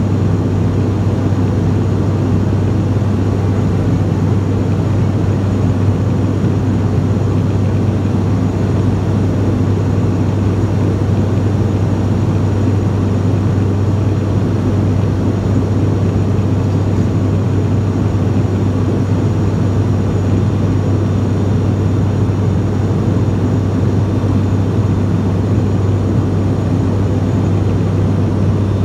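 Cabin noise of an ATR 42-600 turboprop in flight. The Pratt & Whitney PW127 engine and six-bladed propeller just outside the window make a steady drone with a strong low hum.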